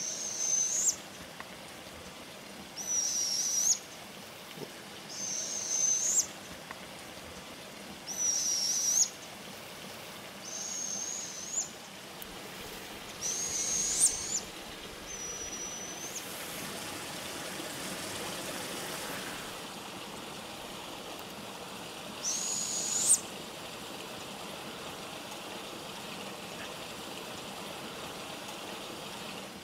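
Northern hawk owl fledglings giving begging calls: high, hoarse screeches with a whistle-like tone that rises at the end, each about a second long. About eight calls come a few seconds apart, with a pause of several seconds after the middle.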